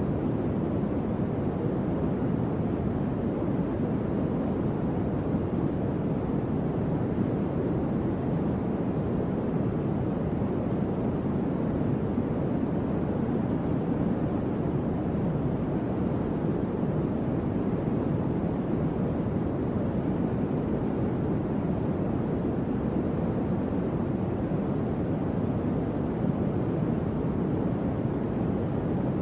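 Electric fan running steadily: an even, low-pitched rush of air with no hum, clicks or changes.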